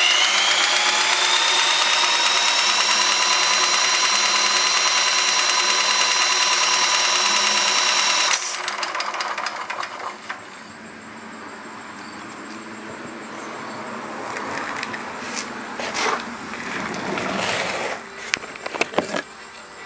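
A small motor whines up to speed and runs steadily at a high pitch, then cuts off abruptly about eight seconds in. After that comes quieter mechanical running, with scattered clicks and knocks near the end.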